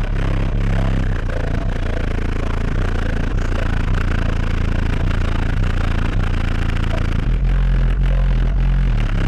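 Car audio system with four Skar ZVX 18-inch subwoofers playing bass-heavy music at high volume, the deep bass dominating.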